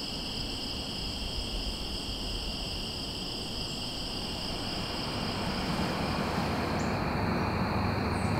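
Crickets chorusing steadily, several high pitches at once. From about two-thirds of the way in, the chorus thins and a low wind rumble on the microphone grows.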